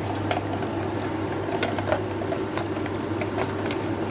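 Onions and potatoes frying in olive oil in a pan on high heat: a steady sizzle with irregular sharp crackles and pops.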